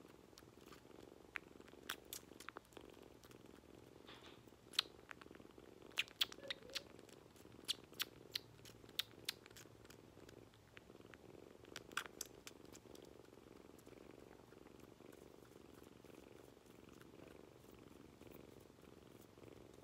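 Kitten purring faintly and steadily while dozing, with scattered sharp clicks over the first two-thirds.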